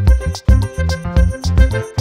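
Background music with a steady beat over a bass line and held notes.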